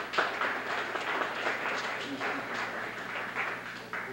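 Audience applauding: a dense, even patter of many hands clapping that thins out near the end, over a steady low electrical hum.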